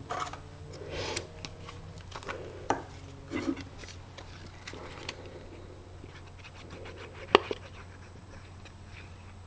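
Card stock and paper pieces being handled while they are set up for gluing: scattered rustles and light taps, with one sharp click about seven seconds in.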